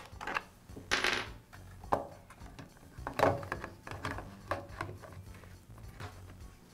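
Black plastic air filter cover being pried and pulled off a lawn edger's small engine: a run of plastic clicks and light knocks, with louder clatters about a second in and about three seconds in.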